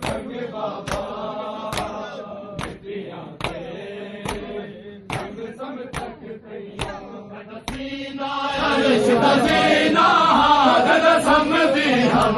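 Shia mourners' unison matam: bare hands slapping bare chests in a steady beat, a little more than once a second, under men's group chanting. About eight seconds in, the massed men's chanting swells much louder.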